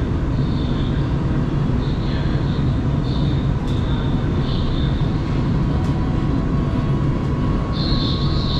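Metro train heard from inside the car as it pulls out of a station and gathers speed: a steady low rumble, with a high whine that comes and goes and a few faint clicks.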